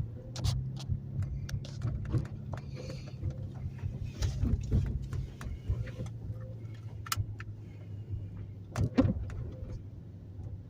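Car driving slowly, heard from inside the cabin: a steady low engine and road hum with scattered light clicks and knocks.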